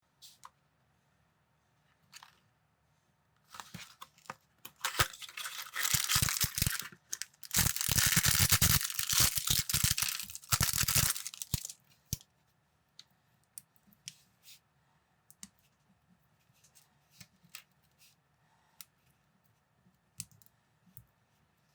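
Plastic parts bag being torn open and crinkled for about eight seconds, then scattered small clicks of plastic building bricks being handled.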